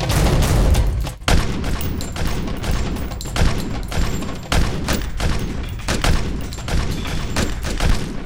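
Handgun gunfire in a film shootout: many shots in quick, irregular succession, some overlapping.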